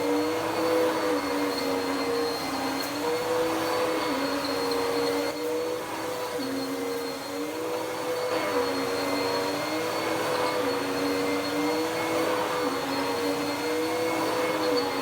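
Dirt Devil PowerMax Pet vacuum cleaner running steadily on carpet. Its motor hum dips and rises slightly in pitch every second or two.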